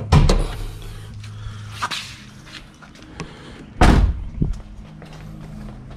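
Car clunks over a steady low hum: a knock right at the start as the hood release is pulled, a smaller knock about two seconds in, then the driver's door shut with a loud thud about four seconds in, followed by a light click.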